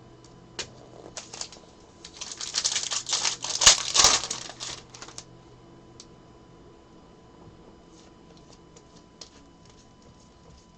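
A dense flurry of quick clicks and rustling for about three seconds, starting about two seconds in and loudest near the four-second mark, with a few scattered single clicks before and after. This is handling noise at a desk.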